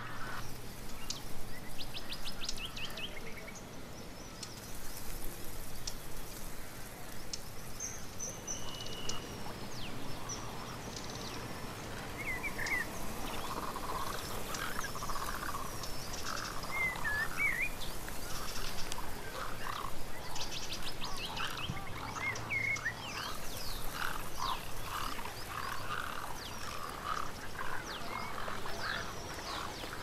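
Wetland field recording of many birds calling at once: croaking calls and chirps, with a few whistled notes that slide up and down.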